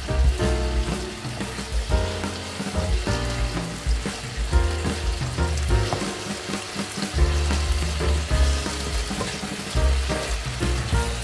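Thin beef slices sizzling in hot oil in a nonstick frying pan as a wooden spatula stirs and turns them, over background music with pitched notes and a strong bass line.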